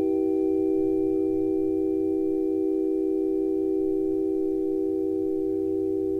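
A sustained electronic tone effect: several steady pitches held together as one chord and fading slowly.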